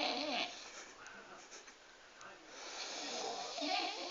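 A person snoring loudly, with a rough, pig-like snore. One snore dies away about half a second in, and the next builds up and peaks near the end.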